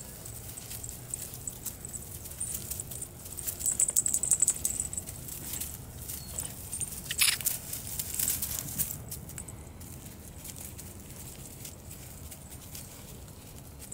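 Weimaraner puppies scrabbling and tussling on dry leaves and grass, with a light rustle and scattered small clicks and jingles from their collar tags. The jingling is busiest about four to five seconds in, and a sharper click comes about seven seconds in.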